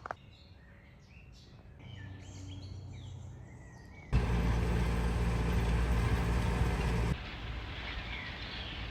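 Small birds chirping softly in the open air. About halfway through, a few seconds of loud rumbling wind noise on the microphone begin suddenly and then cut off, leaving fainter wind and birdsong.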